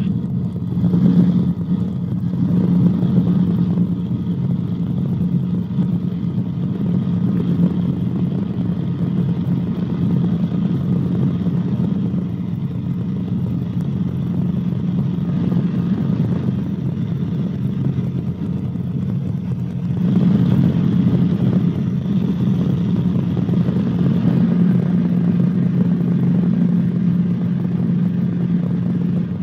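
Cabri G2 helicopter in flight: a steady engine and rotor drone heard from inside the cabin, getting slightly louder about two-thirds of the way through.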